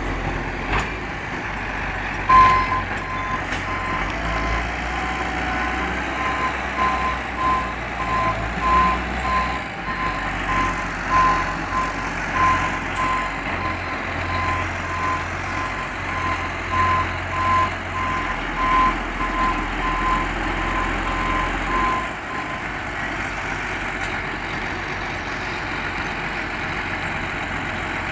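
New Holland T8040 tractor's diesel engine running at low speed under a repeating electronic warning beep, one steady pitch about twice a second, which starts with a sharp knock a couple of seconds in and stops a few seconds before the end, leaving the engine alone.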